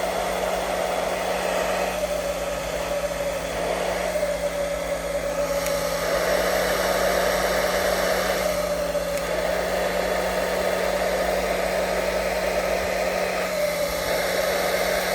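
Hot-air blower running steadily: an even rush of air over a low motor hum. It is heating a GoPro's screen to soften the adhesive so the screen lifts off.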